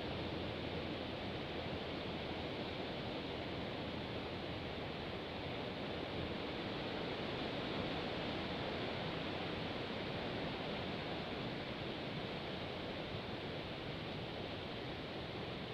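A steady rushing hiss of strong wind, even throughout with no distinct events.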